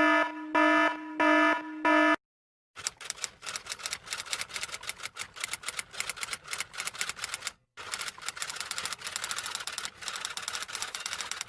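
Four short pitched beeps in the first two seconds. Then a typewriter's keys clack rapidly for about nine seconds, with one brief pause partway through.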